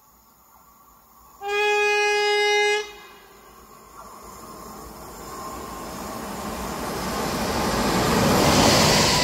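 LOTOS Kolej E6ACTab electric locomotive sounding one horn blast of about a second and a half, then approaching at speed: its wheel-on-rail noise and running hiss grow steadily louder as it comes past.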